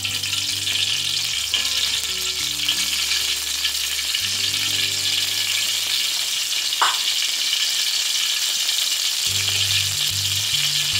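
Hot cooking oil sizzling steadily in a metal wok, with one brief sharp sound about seven seconds in. Background music with low held notes plays under it.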